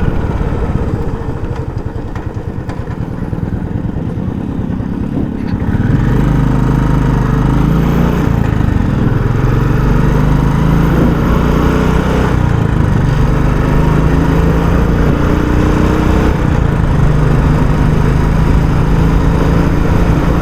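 Royal Enfield Classic 350's single-cylinder engine on its stock exhaust, heard while riding: a rapid thump at lower revs for the first several seconds. About six seconds in it gets louder and settles into a steady engine note that rises in pitch in places as the bike pulls.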